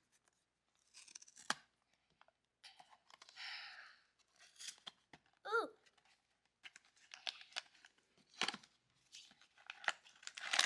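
Cardboard blind box being torn open and its packaging handled: scattered tearing, rustling and small clicks of card and paper.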